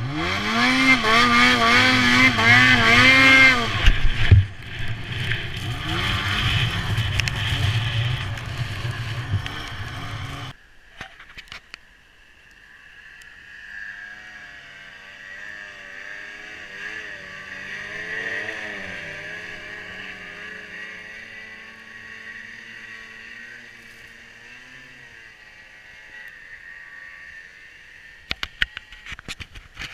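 Ski-Doo Summit 800 E-TEC snowmobile's two-stroke engine revving hard up close on board, its pitch rising and falling with the throttle. After a cut about ten seconds in, sled engines are heard more faintly at a distance, swelling about halfway through and then fading, with a few sharp clicks near the end.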